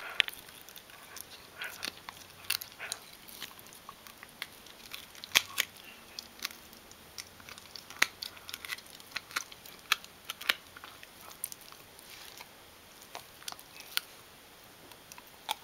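Shetland sheepdog chewing a rawhide dental chew: irregular crunching bites and sharp clicks of teeth, with a few louder cracks around five and eight seconds in.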